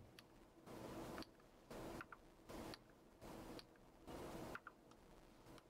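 Near silence: room tone, with faint soft puffs of noise about once a second.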